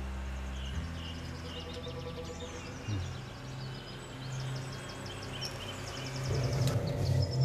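Birds chirping and trilling over a low, held musical drone that shifts pitch a few times.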